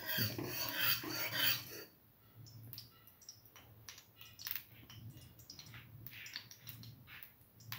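A perforated metal ladle scraping and rubbing across the bottom of a steel pan as oil is spread, stopping about two seconds in. Then it goes quieter, with scattered faint clicks and ticks.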